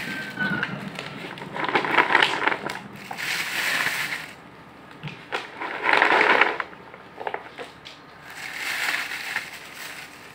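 Wood pellet cat litter being scooped and sifted with a plastic litter scoop: gritty crunching and rattling in about five bursts of a second or so each.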